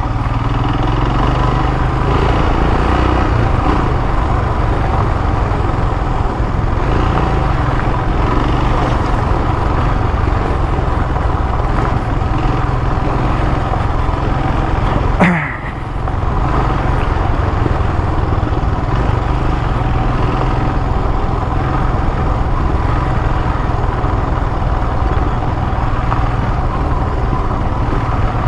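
Royal Enfield motorcycle running steadily while being ridden, heard through a rider-worn microphone with heavy wind and road rush. About halfway through there is a brief sharp sound and the noise dips for a moment.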